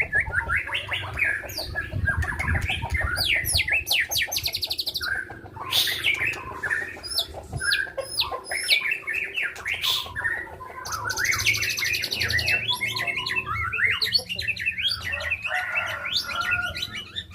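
White-rumped shama (murai batu) singing a long, varied song of whistled notes that slide up and down and fast rapid trills, after coming through its molt.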